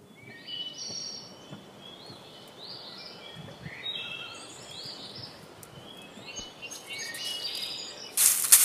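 Small birds chirping and singing in short, overlapping high calls. About eight seconds in, a loud dry rustling starts as a straw broom sweeps over dried pods.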